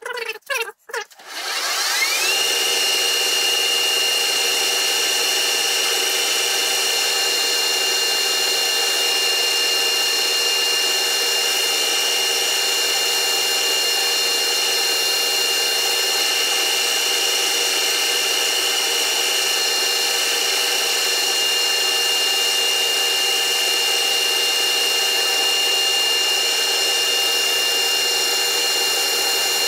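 A few knocks and clicks, then a metal lathe starts up about two seconds in, its whine rising as it comes up to speed. It then runs steadily at speed with a constant high whine.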